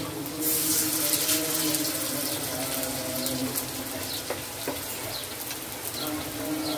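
Radish-and-carrot pakora batter frying in hot oil in an iron kadai: a steady sizzle, loudest soon after a fresh piece of batter goes into the oil near the start.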